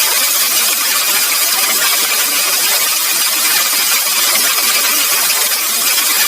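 A loud, steady hiss-like noise with no pitch or rhythm, strongest in the highs and thin in the bass.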